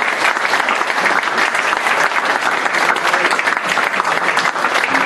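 Audience applauding: many hands clapping together in a dense, steady round.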